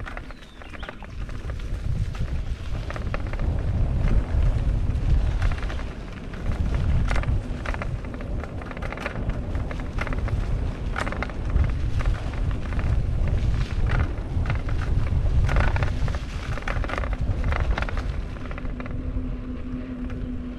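Mountain bike riding fast down a dirt trail: a continuous low rumble of wind buffeting the action camera's microphone, with tyres rolling over the ground and the clicks and rattles of the bike over bumps.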